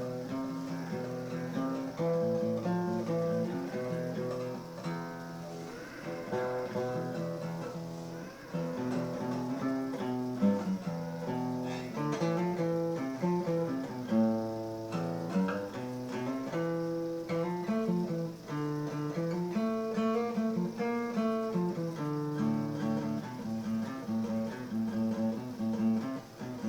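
Guitar music: plucked and strummed notes with chords that change every second or so, with no singing.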